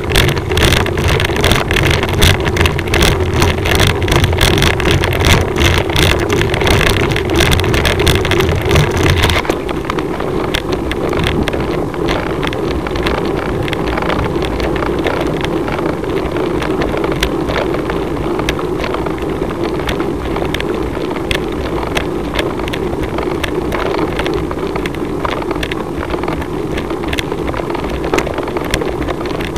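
Wind and road rumble on the microphone of a camera carried up a climb, with a steady drone and a dense rattle of vibration. The deeper rumble and rattling drop off abruptly about nine seconds in, leaving a lighter, steadier noise.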